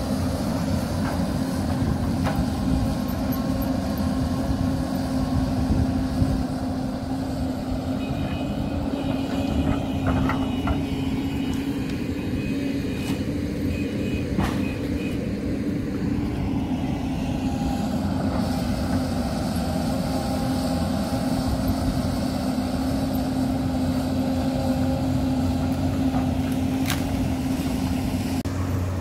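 Hyundai 220LC crawler excavator's diesel engine running steadily under digging load, with a few sharp knocks.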